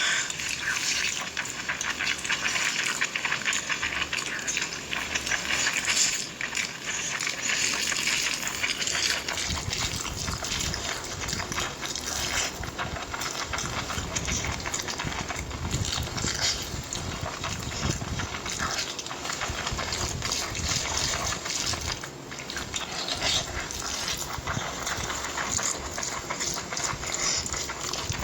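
Close-miked eating sounds: continuous wet chewing and smacking with many small crackles.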